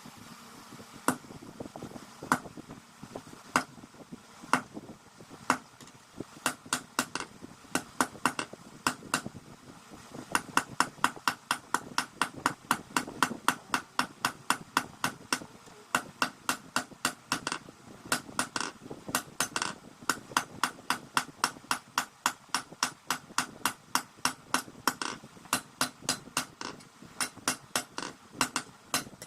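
Blacksmith's hand hammer striking leaf-spring steel on an anvil: a few single blows about a second apart, then quick, steady blows about three a second, each with a short metallic ring.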